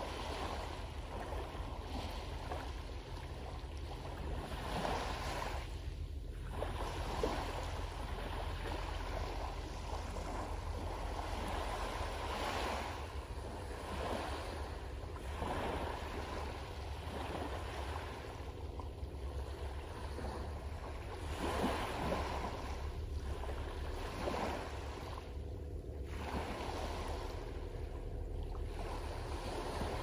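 Small waves lapping and washing up a pebbly beach, a soft surge every few seconds, over a steady low drone from a boat engine.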